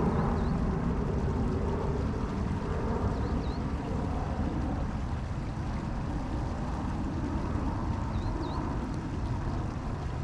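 Steady wind rumble on the microphone, with faint short bird chirps three times, each a quick pair of rising notes.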